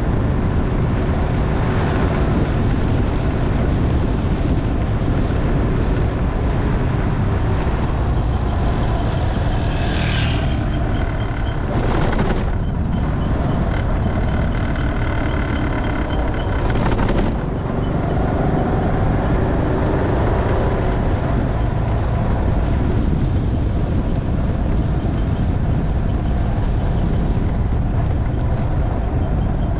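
Motorcycle engine running steadily under way, a continuous rumble heard from on the bike, with a few brief louder surges of noise near the middle.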